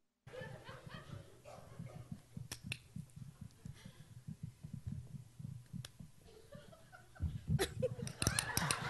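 Dog-training clicker clicking now and then, single sharp clicks and a quick cluster near the end, each click marking a right move by the person being trained. Under it, soft low thumps of people moving on a stage floor, with audience noise rising near the end.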